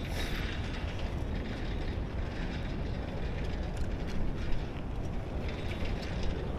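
Wind rumbling on the microphone over tyre and road noise from a moving bike, with a few rattles and clacks, the sharpest about four and a half seconds in.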